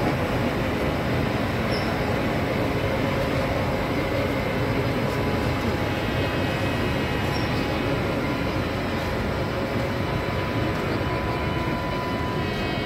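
Indian Railways WAP-7 electric locomotive passing slowly at close range: a steady rumble of wheels on the track, with high steady whining tones that grow clearer about halfway through.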